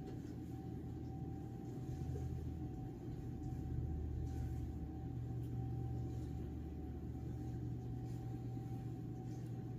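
Steady low hum and rumble of room background noise, with a thin steady whine above it; the hum swells a little about two seconds in.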